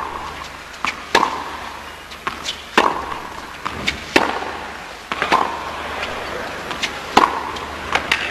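Tennis rally: the ball is struck back and forth by rackets, about eight sharp hits spaced roughly a second apart over a low background hush.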